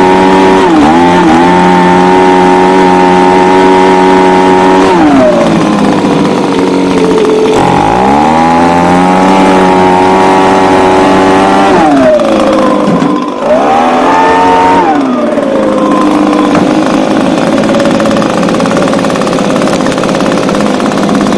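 Small two-stroke engine of an Echo ES250 handheld blower/shredder vac running at full throttle. It drops back to idle about five seconds in, revs up again, drops, gets a short blip and settles to idle.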